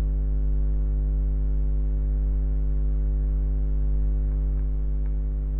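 Steady electrical mains hum: a low buzz with its overtones, unchanging throughout, with two faint clicks near the end.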